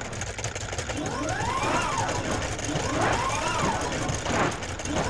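Cartoon car-wash sound effects for rotating scrub brushes: a steady mechanical whirring, with a sliding tone that rises and falls back about every two seconds.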